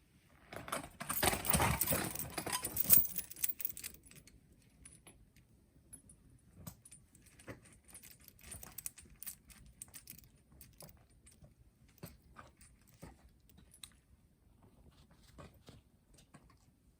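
Metallic jangling and clinking, loudest for about three seconds near the start, then thinning to scattered light clicks and knocks.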